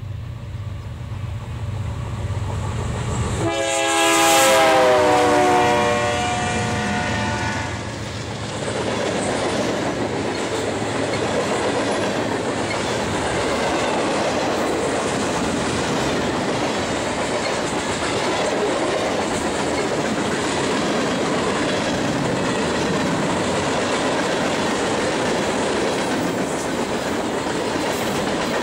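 BNSF diesel freight train passing. About three and a half seconds in, the locomotive's air horn sounds a chord of several tones that slides down in pitch as the locomotive goes by, and this is the loudest part. From about eight seconds in comes the steady rolling rumble and clickety-clack of the freight cars.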